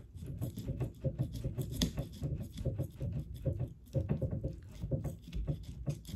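A fish-filleting knife cutting along a hogfish's side in short, irregular sawing strokes, a rasping scrape of the blade through skin and flesh. It is the shallow outlining cut at the start of filleting.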